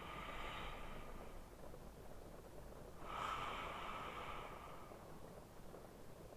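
A sleeping man breathing slowly: one breath at the start and a louder one about three seconds in.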